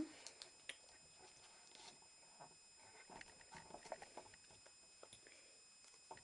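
Faint rustling and soft taps of a small sheet of origami paper being folded in half and creased by hand against a tabletop.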